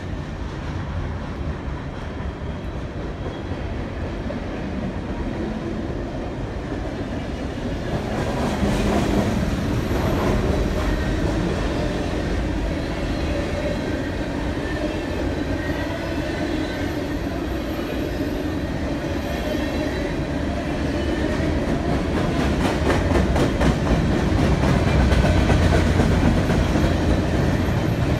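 Freight train of covered hopper cars rolling past, a steady rumble with wheels clacking over rail joints, growing louder about two-thirds of the way through.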